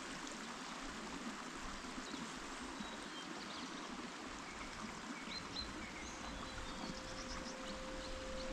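Stream water flowing steadily, with a few short, high bird chirps over it.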